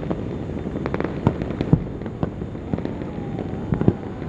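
Citywide New Year fireworks and firecrackers going off at many distances: irregular sharp bangs and pops of uneven loudness over a steady rumble of more distant blasts, with a faint falling whistle in the second half.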